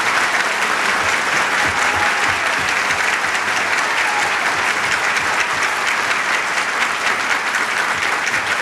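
Audience applauding steadily, a dense sustained clapping from a large crowd.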